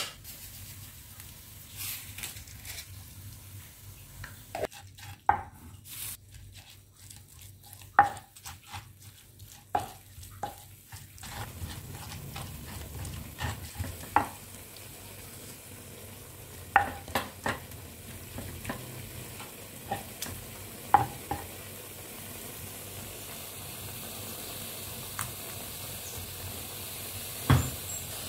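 Stone pestle knocking and grinding in a stone mortar (ulekan and cobek) as chilies, shallots and tomato are crushed into sambal: irregular sharp knocks over a steady hiss, with one louder knock near the end.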